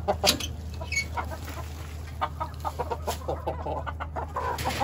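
Domestic chickens clucking in a coop, with scattered short clicks, a brief high chirp about a second in and a short call near the end.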